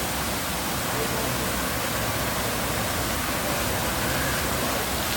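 Steady rush of falling water: a dense, even hiss with no breaks.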